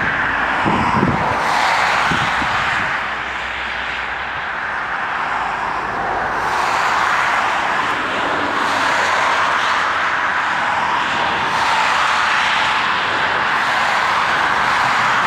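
Twin-engine jet airliner's engines at takeoff power, a steady rushing noise as it rolls down the runway toward the microphone and rotates near the end. Wind buffets the microphone with low thumps in the first second or two.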